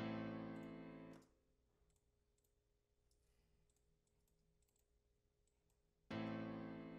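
Software grand piano playing a sustained chord back from a beat pattern, fading and cutting off about a second in. Faint mouse clicks follow, then a new piano chord comes in near the end.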